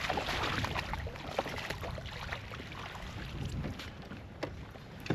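Water splashing and lapping around a kayak hull while a hooked fish is being fought, with a few sharp clicks and knocks and some wind on the microphone.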